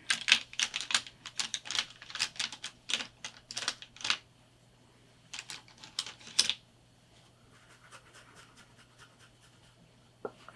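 Rapid light clicks and taps of a makeup brush and eyeshadow palette being handled, for about four seconds, then another short cluster of clicks about two seconds later, then quiet.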